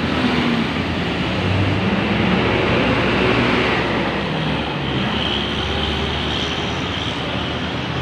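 Large tour coach's diesel engine running as the bus pulls away and passes close by, mixed with steady road traffic noise.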